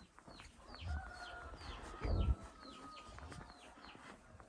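Chickens: a string of short, high chirps falling in pitch, a few a second, with a longer drawn-out call from about one to three seconds in. A low thump comes about two seconds in.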